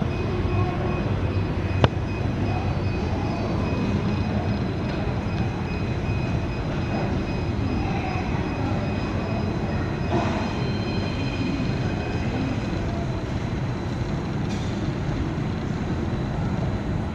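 Jet engines of a taxiing Air Algerie Airbus A330-200, its General Electric CF6-80 turbofans at low thrust: a steady rumble with a thin high whine over it. A single sharp click about two seconds in.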